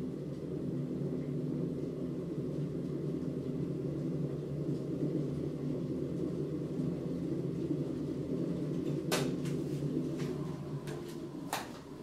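Steady low hum and rumble of a kitchen fan running. A few sharp clicks come about nine seconds in and again near the end.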